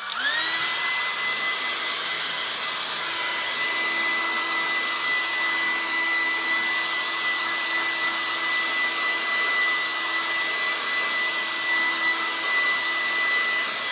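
Hair dryer blowing steadily to dry wet paint on a canvas. Its motor whines up to speed as it switches on and winds down as it switches off near the end.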